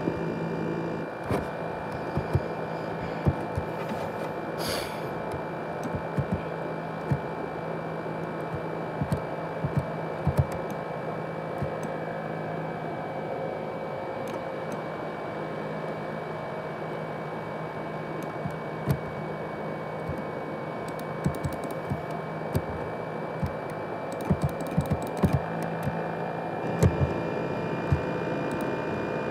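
ASUS X543UA laptop's cooling fan running steadily with a high whine, a noise likened to a jet engine. Irregular clicks sound over it.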